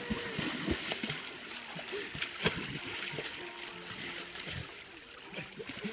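Pool water splashing and sloshing as people thrash about in it, with a sharp slap of water about two and a half seconds in.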